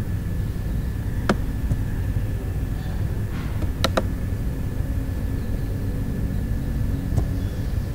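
Computer mouse clicking: one click, then a quick double click a few seconds later, then a fainter click near the end. Under it runs a steady low rumble with a faint high whine.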